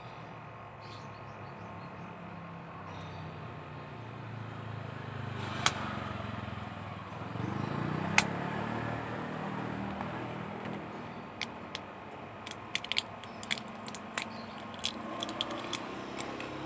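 Low rumble of a vehicle passing, swelling and fading around the middle, with sharp clicks over it: two single clicks, then a quick irregular run of clicks and taps in the second half.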